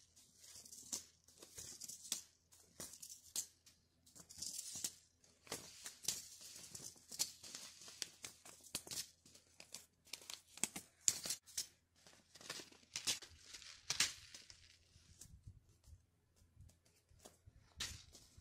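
Paper seed packets being handled and shuffled: irregular crinkling rustles and light taps of paper.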